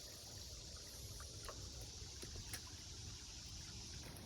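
Faint creekside ambience: a low rumble of moving water or wind with a steady high insect hiss, and a few faint ticks.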